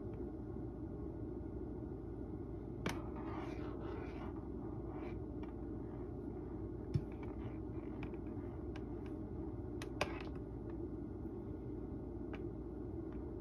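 A cat shifting about on a fleece mat under a wooden chair: a soft rustle about three seconds in and three faint clicks, spaced a few seconds apart, over a steady low room hum.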